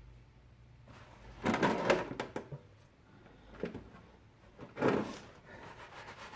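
Handling sounds from work on a car's rear brake: short clatters of tools and parts being moved, in three bunches about a second and a half in, near four seconds and near five seconds.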